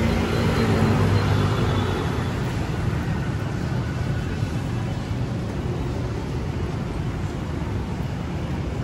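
City street traffic: a motor vehicle engine passing, loudest in the first two seconds, fading into a steady traffic hum.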